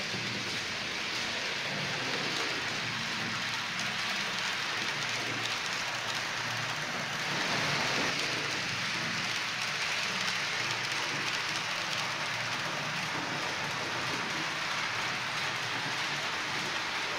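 H0-scale model freight train, a Vectron electric locomotive hauling tank wagons, running along layout track: a steady rushing rolling noise of wheels on rails and the locomotive's motor, swelling slightly about halfway through.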